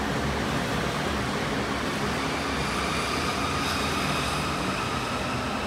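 Steady rumble of a metro platform with a faint electric whine that rises slowly in pitch from about halfway in, like a metro train's traction motors speeding up.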